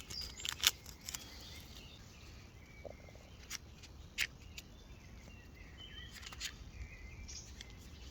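A few sharp clicks and handling noises, loudest in the first second, as new repellent pads are unwrapped and loaded into a small plastic mosquito-repellent device. Faint short bird chirps sound in the background.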